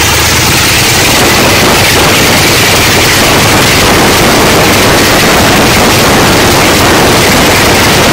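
Grumman Albatross's Wright R-1820 nine-cylinder radial engines running steadily as the amphibian taxis on the water: a loud, unbroken drone mixed with the rush of spray and wind over the hull.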